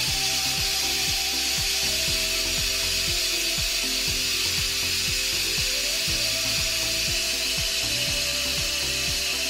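Electric pressure cooker venting its remaining steam through the lid's release valve with a steady hiss: a quick release of the pressure left after a natural release. Background music with a steady beat plays underneath.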